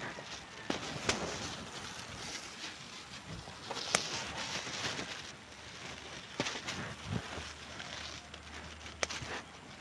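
Scissors snipping okra pods off the plant: about five sharp snips spread over the stretch, the loudest about four seconds in, over a steady rustle of leaves and handling.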